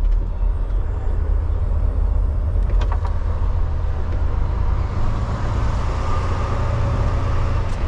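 Semi-truck diesel engine running steadily, heard from inside the cab as a low rumble, with a couple of light clicks.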